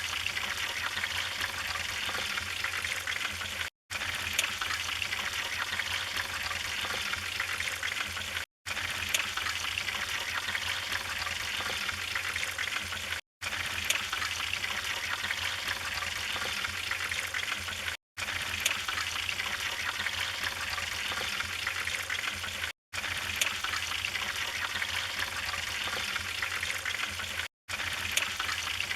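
Wood fire burning in a fireplace: a steady hiss with occasional sharp crackles and pops. It cuts out to silence for a split second about every five seconds.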